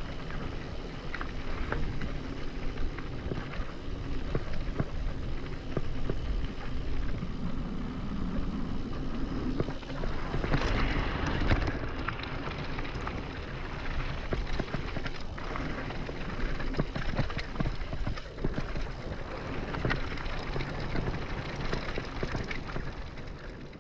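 Mountain bike rolling fast down a dirt trail: tyres running over dirt and loose gravel, with constant small knocks and rattles from the bike over bumps, and wind rushing on the microphone. The noise swells loudest for a moment about ten to twelve seconds in.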